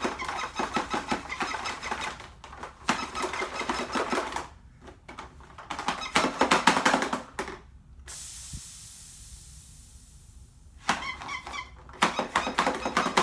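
Toy Gatling gun rattling with rapid mechanical clicks as it is fired, in three bursts, with a hiss of spray for about three seconds between the second and third bursts that fades away.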